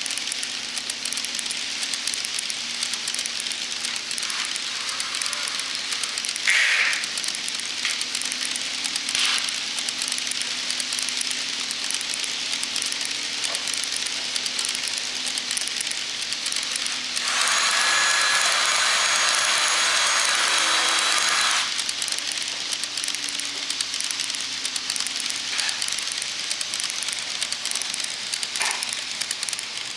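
N scale model coal train of Kato Bethgon Coalporter hopper cars rolling along the track: a steady fine crackling rattle of many small wheels on rail, with a few short squeaks. About 17 seconds in, a louder hiss rises for about four seconds, then falls back.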